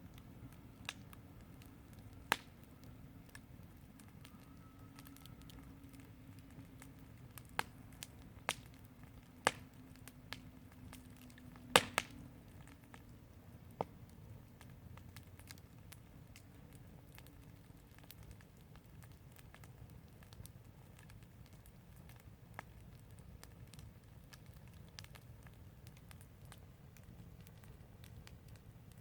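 Fire crackling: scattered sharp pops and snaps, about a dozen, most in the first half and the loudest a quick double crack about twelve seconds in, over a low steady rumble.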